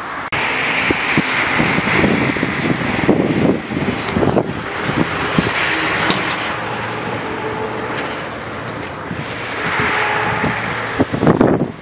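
Steady rushing outdoor noise, with clicks and knocks as the SsangYong Actyon Sports pickup's tailgate is unlatched by its handle and lowered partway through.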